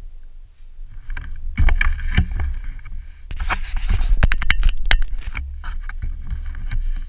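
Bursts of scraping and rustling right at the camera's microphone, with sharp clicks, over a low rumble.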